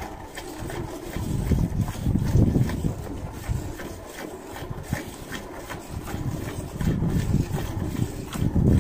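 Milk squirting from the teats into a steel pail as a cow is milked by hand, in short repeated spurts a few times a second. A low, uneven rumble runs underneath.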